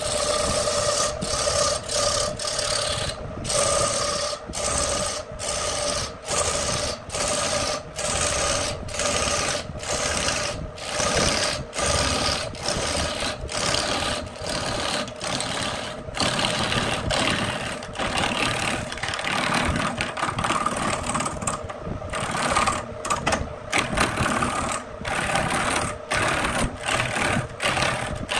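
An electric wood lathe runs with a steady motor hum while a hand-held gouge cuts the spinning wood blank, a rough hiss of shavings being peeled off. The cutting noise breaks off about twice a second as the tool is worked across the surface in short passes.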